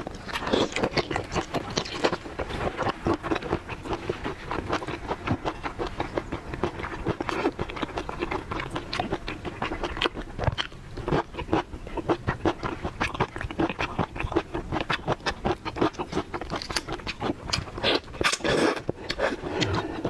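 Close-miked eating sounds of a person eating large shrimp: a dense, unbroken run of crackling clicks from biting and chewing.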